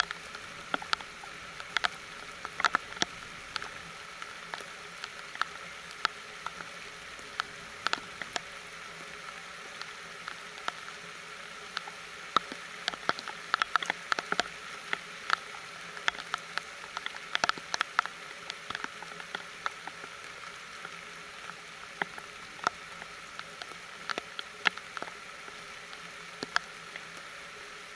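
Steady rain hissing down, with the irregular sharp ticks of nearby drops, busiest around the middle.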